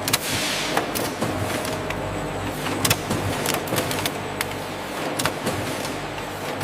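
Factory machinery running, a steady mechanical hum with irregular sharp clicks and clacks.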